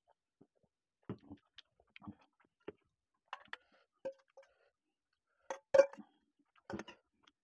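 Stainless-steel utensils clinking: a steel spoon knocking against a steel serving bowl while egg curry is spooned onto a plate of rice, the bowl giving a short ring. The loudest clink comes about six seconds in, with scattered lighter knocks before it.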